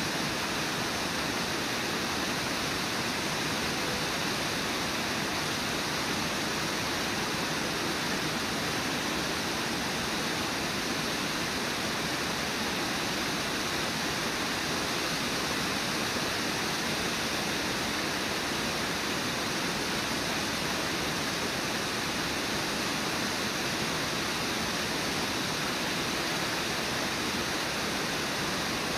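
Steady rushing of Brooks Falls, river water pouring over the low, wide waterfall.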